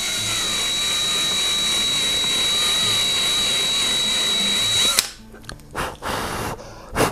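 Hand-held drill-driver running steadily at speed, boring a 6 mm hole into wood, held freehand to keep the hole square. It cuts off sharply about five seconds in, followed by a few short rustles and a knock.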